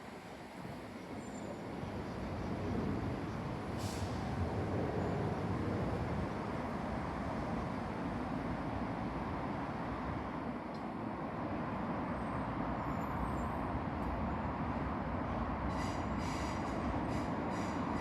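Northern Class 323 electric multiple unit moving through the station: a steady rumble of wheels on the track that grows louder about two seconds in, with a run of sharp clicks near the end.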